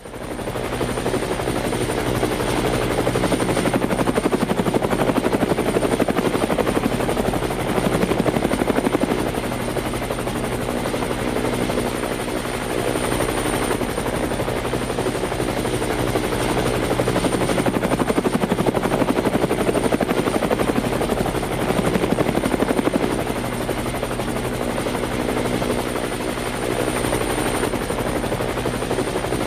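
Helicopter running, with a fast, even rotor beat and a thin steady high whine. It fades in at the start, then swells and eases slowly in loudness.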